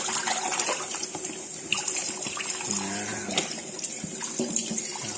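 Tap water running steadily into a sink as a whole tilapia is rinsed under it, with a few small knocks of handling.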